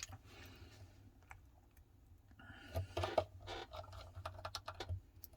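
Light scattered clicks and scrapes of small phone parts and repair tools being handled during smartphone reassembly.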